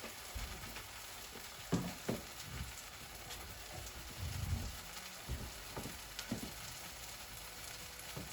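Vegetables and plant-based egg frying in oil in a non-stick pan: a steady soft sizzle, broken by a scattering of short low knocks.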